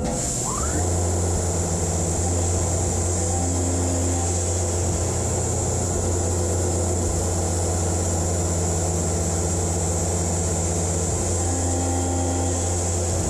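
Tormach PCNC 1100 CNC mill running: the spindle whines up in pitch about half a second in, then runs steadily with a low hum and a high hiss as the end mill is brought to the aluminium part.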